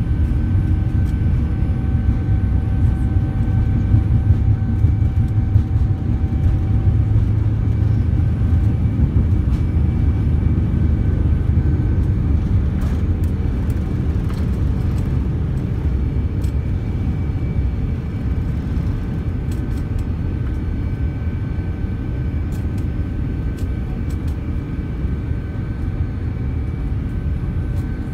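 Cabin noise inside a Boeing 787-9 Dreamliner on takeoff: the engines at takeoff power over a heavy runway rumble during the takeoff roll. The rumble eases about twelve seconds in as the aircraft lifts off, leaving a steady engine drone with faint whining tones through the climb.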